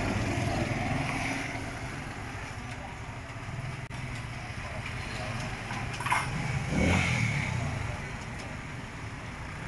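Steady hum of motor traffic in the background, with a sharp click about six seconds in and a brief louder sound just after it.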